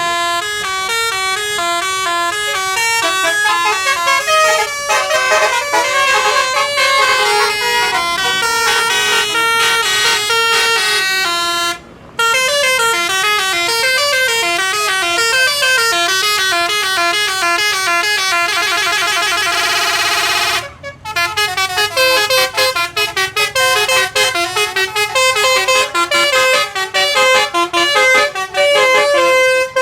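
Telolet basuri musical bus horn playing fast stepping melodies, note after note. It breaks off briefly twice, once about 12 seconds in and again about 21 seconds in, just after a long held chord.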